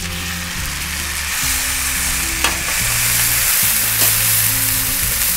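Thick steak sizzling in a frying pan over a wood fire, a steady hissing sear, with two sharp clicks about two and a half and four seconds in.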